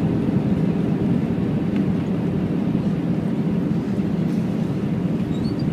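Airbus A321 rolling down the runway after touchdown, heard from inside the cabin over the wing: a steady, deep rumble of engines and wheels on the runway that eases slightly as the aircraft slows.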